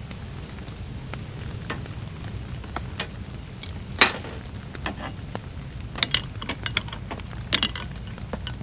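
Scattered sharp clicks and taps over a steady low rain hiss. The loudest click comes about four seconds in, and quick clusters of clicks follow near the end.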